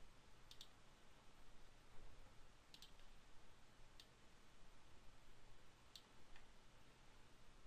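Faint single clicks of a computer mouse button, about five of them spread irregularly over low room hiss.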